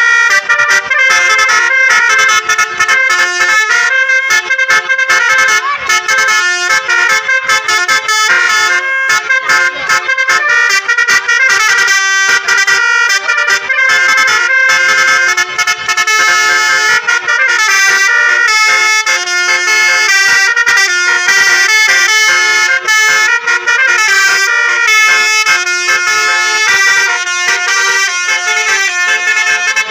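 Tour bus basuri telolet horns playing a fast melody of many short stepped notes, without a break.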